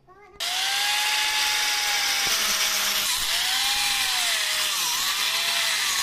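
Angle grinder fitted with a diamond core bit, cutting a round hole into a stair tread. The motor starts suddenly just under half a second in, and its whine sags and recovers as the bit is pressed into the stone.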